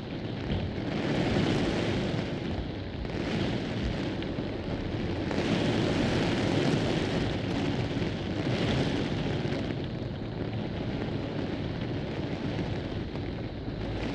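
Thunderstorm wind and heavy rain: a steady rushing noise that swells and eases in gusts every few seconds.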